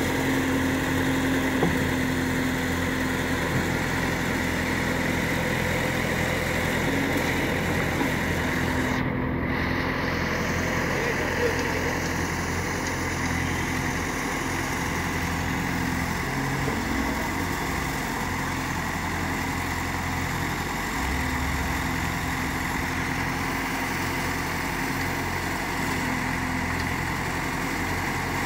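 Diesel engine of a Case backhoe loader running steadily as it digs soil and loads it into a tractor trolley.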